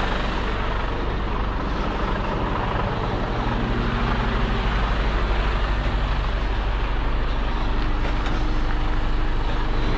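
Semi-truck tractor unit's diesel engine running steadily, a little louder from about four seconds in.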